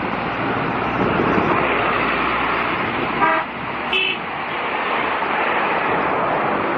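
Steady rushing noise, with a short car horn toot about three seconds in and a brief higher beep a second later.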